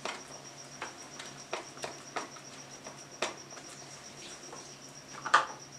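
Soft, scattered taps and scrapes of a silicone spatula against a plastic container and the thick barfi mixture as it is pressed level, a few light strokes with a sharper one near the end, over a faint steady high-pitched trill.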